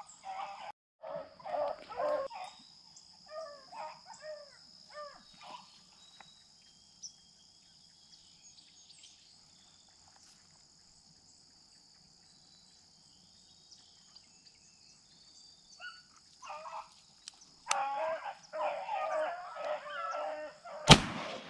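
Rabbit dogs baying on a running rabbit in two spells, with a quiet stretch between. Near the end comes a single loud shotgun shot, which takes the rabbit.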